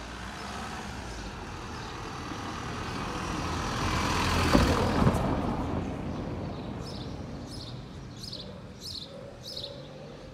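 A motor vehicle drives past close by: its noise swells to a peak about halfway through, with a few sharp rattles at the loudest point, then fades away. Near the end a bird chirps about five times in quick succession.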